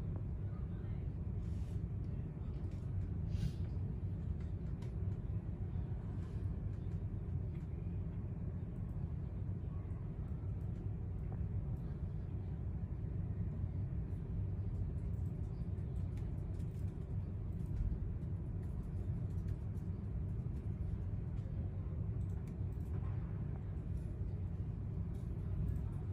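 Steady low rumble of open-air stadium ambience picked up by a distant phone microphone, with a few faint ticks.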